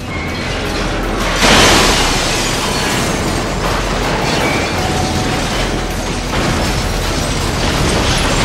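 Animated sound effects of a steel lattice tower giving way and falling, with a loud crash about a second and a half in and dense crashing noise continuing after it.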